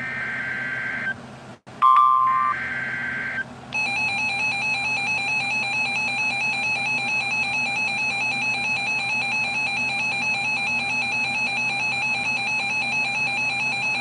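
Emergency Alert System tones. Two short screeching SAME data bursts are broken by a sharp click and a brief beep about two seconds in. About four seconds in, the EAS attention signal begins: a loud, buzzy, pulsing beep held at one pitch for about ten seconds.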